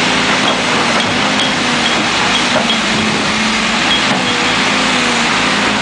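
Backhoe's diesel engine running steadily and loudly while its bucket works the dirt.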